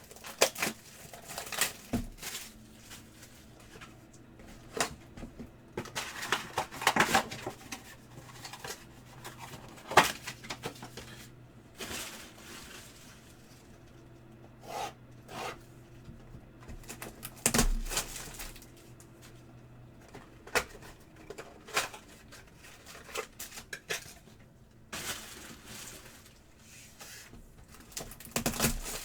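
Trading card box and packs being handled and opened by hand: irregular crinkling and rustling of wrapper, with sharp taps and clicks. Two louder snaps come about 10 and 17 seconds in.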